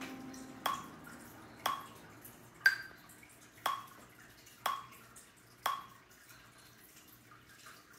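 Metronome ticking at one click a second, six clicks in all, the third one higher-pitched as the accented downbeat of a four-count; the clicks stop about six seconds in.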